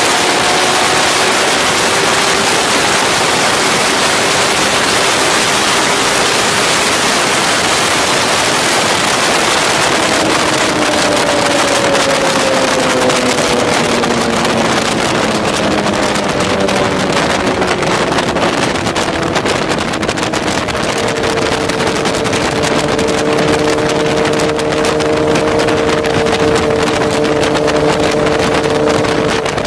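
Sport motorcycle riding at speed, heard from on the bike: heavy wind rush over the microphone with the engine's hum underneath. The engine note holds steady, drops slowly in pitch around the middle as the bike eases off, then holds steady again.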